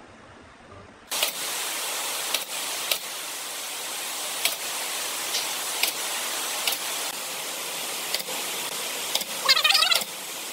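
Pneumatic nail gun firing nails into pine, a sharp shot every second or so, about eight in all, over a steady hiss that sets in abruptly about a second in.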